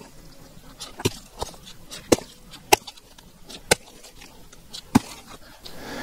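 A long-handled tool strikes a section of dead coconut palm trunk about six times at uneven intervals, each a sharp knock. The fibrous coconut wood does not split open the way regular wood would.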